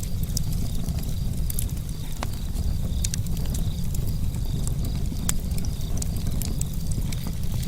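Campfire burning: a steady low rumble with scattered sharp crackles and pops from the burning wood.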